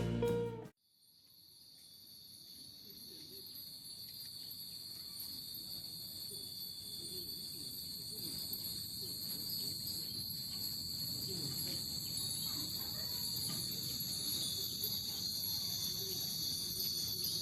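Steady chorus of crickets chirring, an even high-pitched drone that fades in after a few seconds and grows louder. A piece of background music cuts off in the first second.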